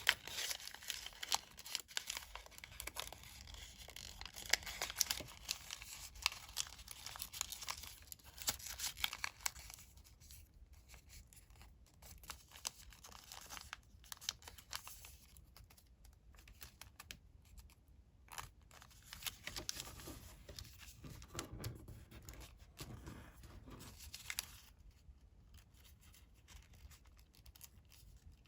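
Colored origami paper being folded and creased by hand, crinkling and rustling. It is dense for the first ten seconds or so, then thins to scattered creases and rustles.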